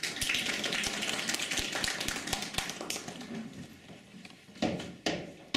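Knocking and tapping on a prop door: a quick run of taps with a few low thuds, then two sharp knocks near the end.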